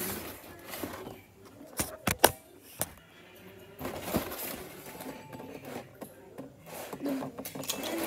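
Beyblade spinning tops battling in a clear plastic stadium: a few sharp clacks about two seconds in, then quieter rattling and scraping.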